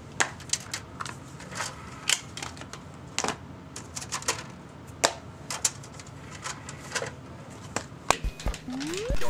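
Xbox 360 disc tray and game disc being handled: the tray opened, a disc dropped in and the tray pushed shut. Irregular sharp plastic clicks, with a short rising whine near the end.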